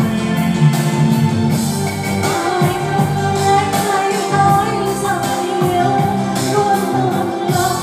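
Karaoke singing through a handheld microphone over a backing track, a man's voice and then a woman's voice carrying the melody.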